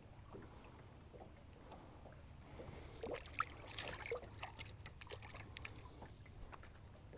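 Faint splashing and sloshing of lake water as a bass is let go over the side of the boat, a cluster of small splashes and light knocks about three to five seconds in, over a low steady rumble.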